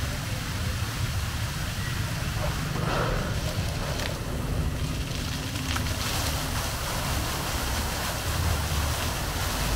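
Steady outdoor ambience dominated by a low rumble, the kind of wind buffeting on the microphone or distant traffic that a walking camera picks up.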